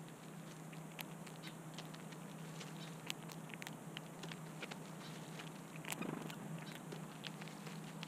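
Red-winged blackbirds pecking and stepping among dry sunflower seed hulls: scattered light clicks and pattering at irregular intervals, with a louder rustle about six seconds in.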